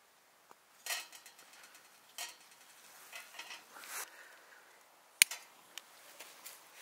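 A few short metallic scrapes and clinks, then one sharp click a little past five seconds, while jute twine tinder inside a small stainless steel wood stove is lit.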